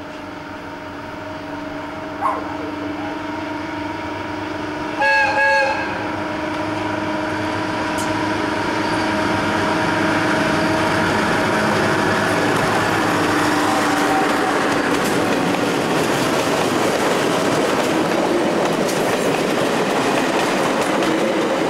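Diesel locomotive approaching with a steady engine drone, sounding its horn in two short blasts about five seconds in, then growing louder as it draws level, its engine and wheels rumbling on the rails.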